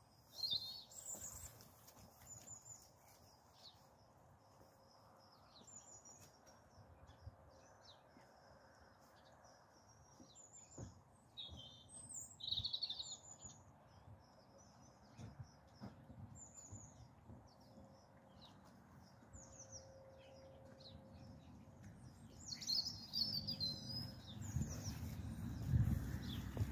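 Small birds chirping with short high calls throughout, over faint outdoor background noise. Near the end, a person's footsteps approaching over plastic ground-cover sheeting, with low rustling thuds.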